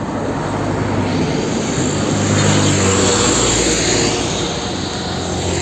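Hino car-carrier truck's diesel engine and tyres on the road as the loaded truck drives past: a steady low drone that swells around the middle and eases off near the end.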